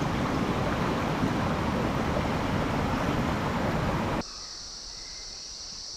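Water of the Mossman River rushing through a boulder-strewn gorge, a steady loud rush of noise. A little over four seconds in it cuts off abruptly to quieter rainforest ambience with a steady high insect drone.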